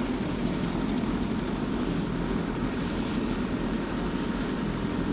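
Helicopter in flight, a steady low engine and rotor drone.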